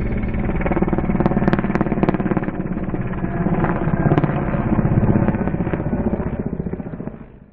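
Mi-8MSB helicopter in flight: the fast, steady beat of its rotor blades over engine noise, fading out near the end.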